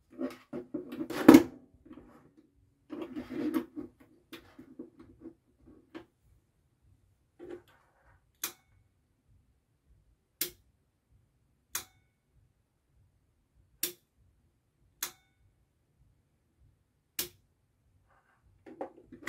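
Wired push buttons and pilot lamps being handled on a desk, with rustling and knocks, then six sharp single clicks one to two seconds apart: a push button being pressed and the 24 V DC 11-pin relay switching, turning the lamps on and off.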